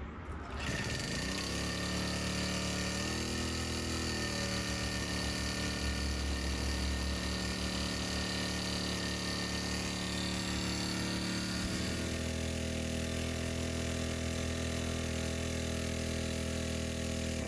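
Small portable gasoline engine water pump starting up about a second in, then running steadily while pumping seawater through its hoses. Its engine note steps up slightly about three seconds in and drops lower about twelve seconds in.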